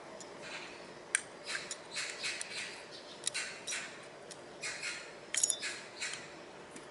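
Scooter front brake caliper being worked by hand over the brake disc: a string of light metal clicks, taps and scrapes, with a few sharper clinks.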